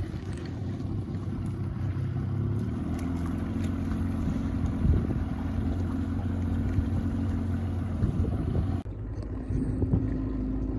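Boat motor running steadily at low speed, a low even hum, with wind rushing on the microphone. The sound changes abruptly about nine seconds in.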